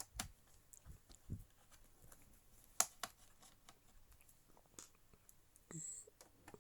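Faint scattered clicks and light knocks of a laptop and small tools being handled, with one sharper click about three seconds in and a brief rasp near the end.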